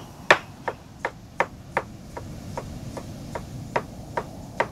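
Chef's knife slicing tomatoes on a wooden cutting board, the blade knocking on the board in an even rhythm of about three cuts a second.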